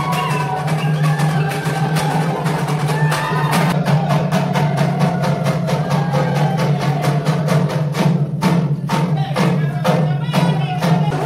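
Live Tharu folk dance music: double-headed barrel drums beating with a dense run of sharp wooden clacks.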